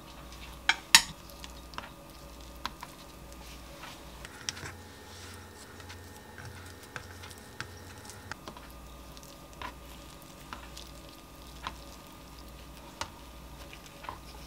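Two sharp knocks about a second in as a wooden spoon drops rice onto a perilla leaf on a wooden cutting board, then soft scattered clicks and taps of fingers folding the perilla leaves around the rice on the board. A low steady hum runs underneath.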